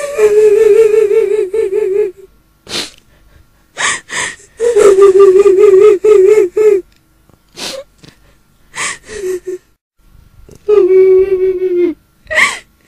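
Eerie wailing cry of a kuntilanak (the Indonesian female ghost) in a woman's voice: three long, wavering held notes on one pitch and one short one. Between the notes come sharp, gasping, sobbing breaths.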